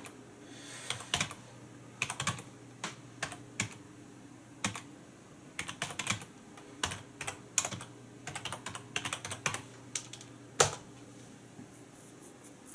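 Computer keyboard typing in irregular bursts of keystrokes, with one sharper, louder key press about two-thirds of the way through.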